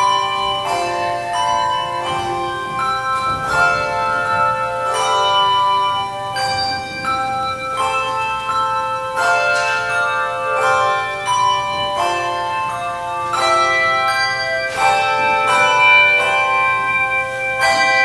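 Handbell choir playing: several handbells rung together in chords, each set of notes ringing on and overlapping the next as new bells are struck.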